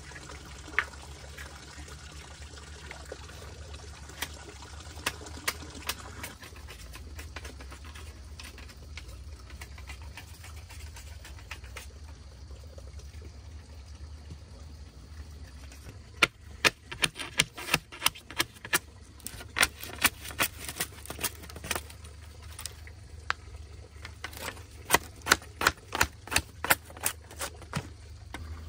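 Quick runs of sharp knocks and taps from bamboo poles being worked, several a second, in two spells through the second half, over a steady sound of running water.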